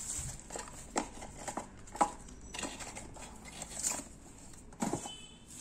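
Cardboard box and bubble-wrap packaging being handled: scattered light clicks, taps and rustles as small accessories are taken out of the box.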